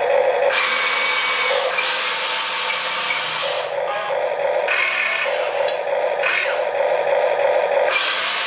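Huina RC excavator's electric motors whirring in several bursts as the boom and arm are lowered, the longest about two seconds, over a steady hum.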